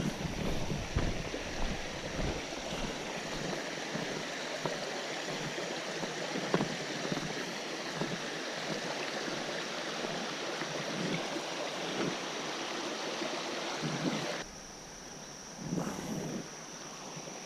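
Creek water rushing steadily over rocks, with a thin, steady high-pitched tone above it. About three-quarters of the way through, the rushing drops suddenly to a quieter level.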